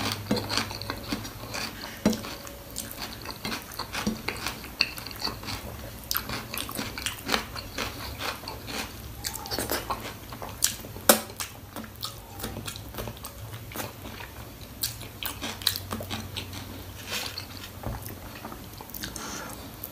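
Close-up eating sounds of mutton paya (goat trotters) with rice and gravy: wet chewing and biting with many irregular sharp clicks and smacks, the loudest about 11 seconds in. A faint low hum runs underneath.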